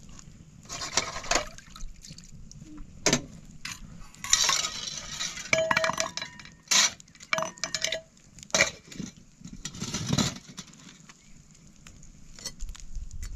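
Irregular clinks and clatters of hard objects being handled: a dozen or so separate knocks, a few of them ringing briefly.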